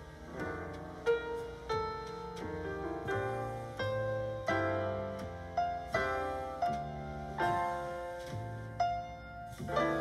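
Background music: a melody of struck, fading notes over low held bass notes.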